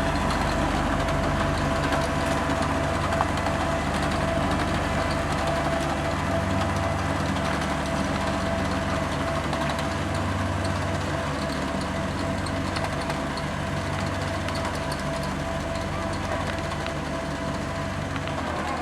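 Diesel engine of a road roller running steadily on asphalt work, with a low throb that swells and fades every couple of seconds, slowly getting fainter.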